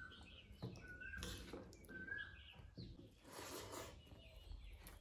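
Faint sounds of fingers mixing rice with cucumber salad on a plate: a few soft, short rustles, the clearest about a second in and about three and a half seconds in. Short rising chirps recur about once a second in the first half.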